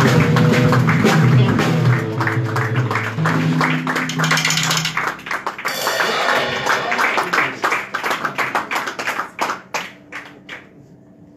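Live jazz group playing, with the drum kit loud and close: sticks on drums and cymbals over an acoustic bass line. The music thins out and stops about ten seconds in.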